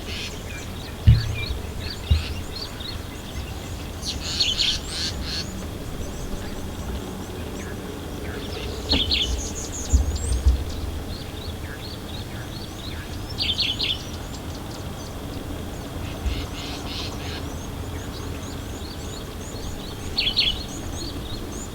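Several wild birds calling and chirping, one repeating a short burst of high notes every few seconds, with a few low thumps in between.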